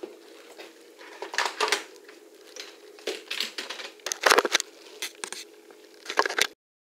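Bursts of scraping and crunching as old, hardened plumber's putty is cleaned off the flange of a kitchen sink strainer basket, four or five rough spells with short pauses between.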